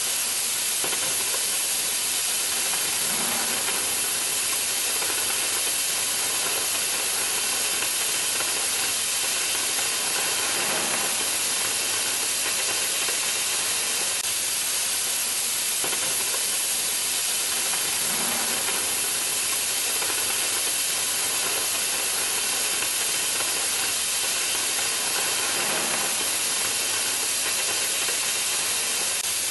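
Oxy-fuel cutting torch on an HK-12MAX-3 flame cutting carriage hissing steadily as its oxygen jet burns through steel plate.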